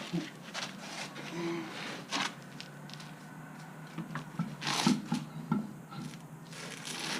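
Scattered light knocks, clicks and rustles of hands handling metal parts and tools at a brake caliper, with a few sharper knocks about two and five seconds in.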